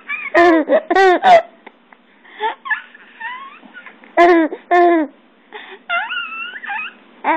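A young baby cooing happily in short, loud vocal sounds that rise and fall in pitch: three in quick succession at the start, two more about four seconds in, then higher squeals near the end.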